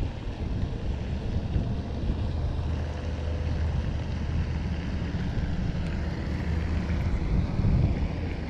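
Wind buffeting the microphone: a steady low rumble that swells and eases.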